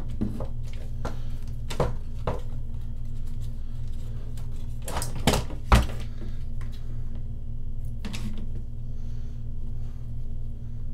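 Nylon sling webbing rustling as it is pulled through a plastic rifle buttstock's sling slot and tri-glides, with scattered knocks of the stock being handled, the loudest two about halfway through.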